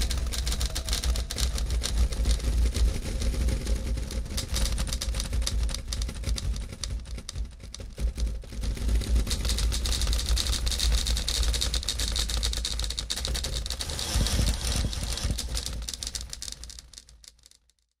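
Dense, rapid clatter of manual typewriter keys over a steady low rumble, fading out in the last couple of seconds.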